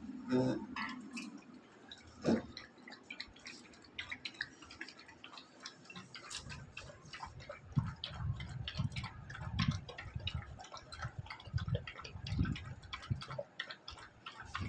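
Dogs lapping ghol (yogurt thinned with water) from a bowl: a steady run of quick wet clicks, with low knocks joining in during the second half.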